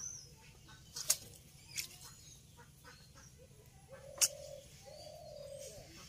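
Indian ringneck parrot dipping its beak into water in a steel basin: two sharp splashes, about a second in and about four seconds in, and a smaller one between. Short low bird calls sound between them.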